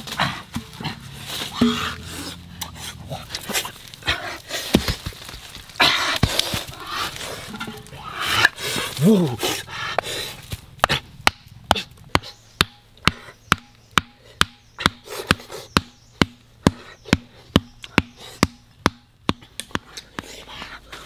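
A round stone knocking wooden stakes into the ground: a steady run of sharp knocks, about two a second, through the second half. Before that, rustling and handling of clay pots and leaves, with a brief voice.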